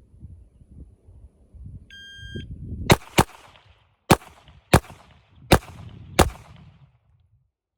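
A shot timer's start beep, then six handgun shots in three pairs: a quick pair to the body, then two slower, more spaced pairs for the head box and the 2-inch circle. The six shots make a clean six-round Parrot drill run timed at 4.31 seconds.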